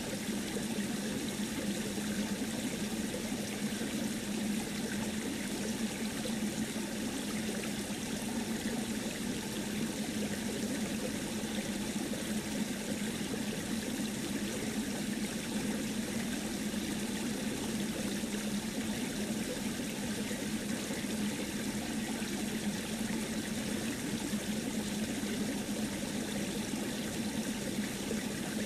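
A steady, even rushing noise like running water, with no distinct events or breaks.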